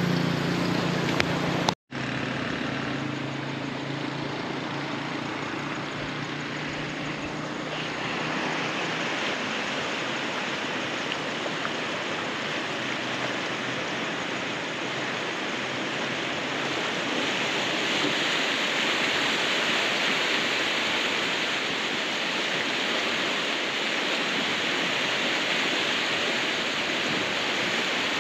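Rain-swollen stream rushing steadily under a bridge, its floodwater flowing hard after a downpour. A low hum fades away over the first several seconds.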